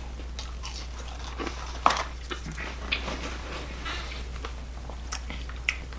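Soft eating sounds: chewing and mouth noises with a few sharp little clicks, the sharpest about two seconds in, over a steady low electrical hum.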